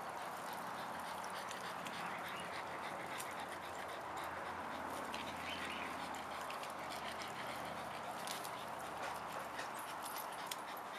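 Faint dog sounds over a steady background hiss, with a few light clicks.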